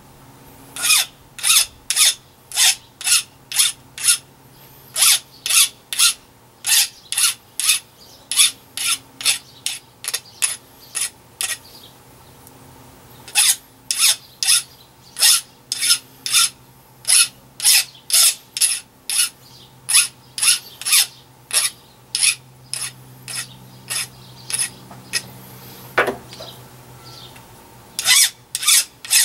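Hand file rasping over the edge of a small metal bracket, stroke after stroke at about two to three a second, in long runs broken by a few short pauses.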